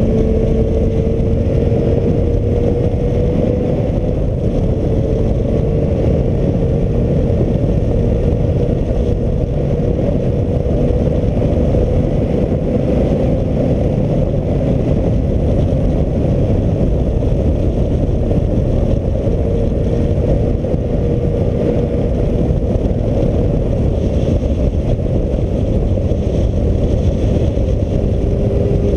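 Heavy wind buffeting on the camera microphone of a moving motorcycle, a loud, steady rumbling rush. Under it the Suzuki Bandit's inline-four engine is faintly heard, its note drifting slowly up and down as the bike holds speed through the bends.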